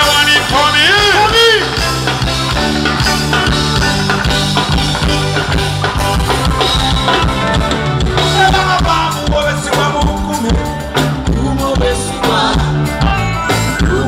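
Live band playing an upbeat song through the stage sound system, with a steady bass line, drums and guitar, and a man singing over it near the start and again in the second half.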